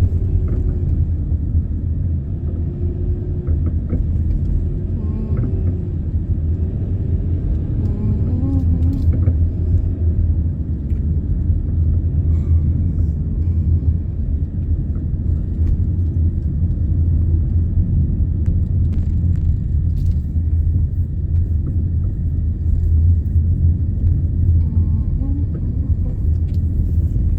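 Steady low rumble of a car driving, heard inside the cabin: road and engine noise.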